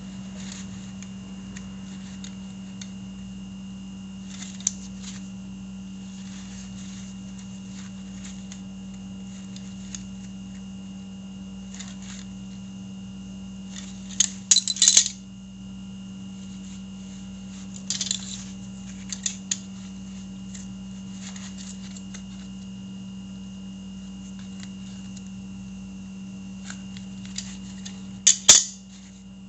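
Intermittent sharp metallic clicks and clatters of tools and brake parts being handled, over a steady low hum. The loudest clatter comes about halfway through, with another near the end.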